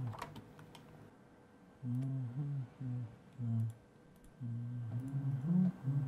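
A low voice humming a slow tune in short phrases, with faint clicks.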